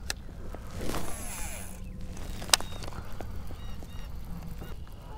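Geese honking faintly a few times. A sharp click about two and a half seconds in is the loudest sound.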